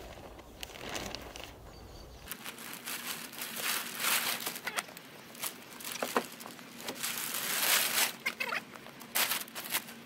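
Plastic sheeting rustling and crinkling as it is pulled back and folded off a stack of boards, with many sharp crackles throughout.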